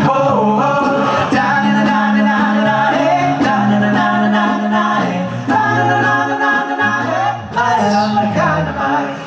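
Male a cappella vocal group singing close harmony, with one voice holding a sung bass line under the chords, mid-song.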